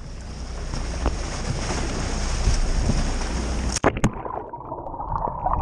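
Wind buffeting the microphone and sea water rushing at a boat's stern. About four seconds in there is a sharp splash as the camera plunges into the sea, after which the sound turns muffled and underwater, with bubbling and a faint steady hum.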